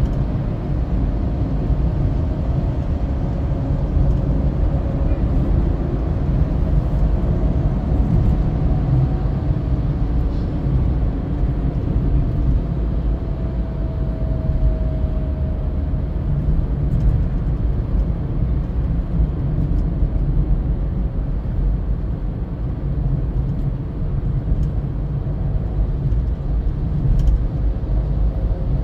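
Steady road noise of a car cruising on a multi-lane toll road, heard from inside the cabin: a low, even rumble of tyres and engine, with a faint whine that slides slightly lower around the middle.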